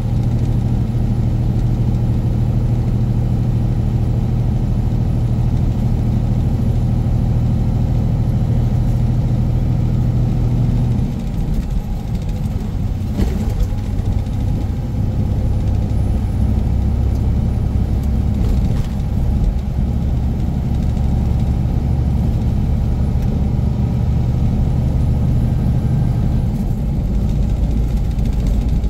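Semi-truck diesel engine running steadily on the road; its note drops to a lower pitch about eleven seconds in.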